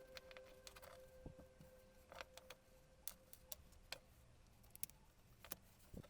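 Near silence with faint, scattered small clicks and taps, about a dozen, spread unevenly. A faint steady tone fades out about two and a half seconds in.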